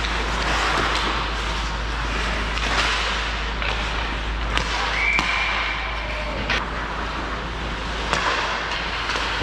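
Hockey game in play: sharp cracks of sticks and puck over the steady din of the rink. A high steady tone lasts about a second midway.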